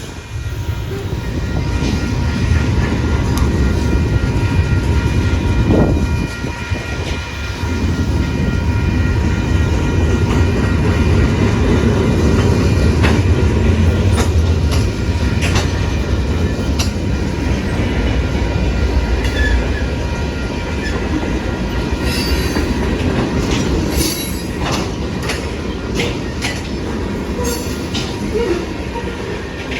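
A train passing close by: a steady heavy rumble, with wheels clicking over the rail joints, more often in the second half.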